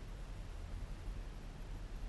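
Wind rumbling on the microphone, an uneven low buffeting with a faint hiss above it.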